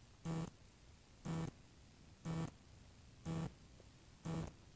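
Electronic beeper on a landed RC motor glider, giving a short, low, steady-pitched beep once a second, five times.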